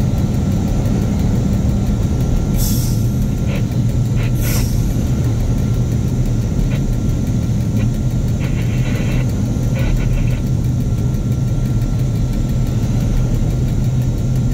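Shunting diesel locomotive running steadily as it hauls a train along the track, heard from the cab, with a constant low engine hum. Two short hisses come about two and a half and four and a half seconds in.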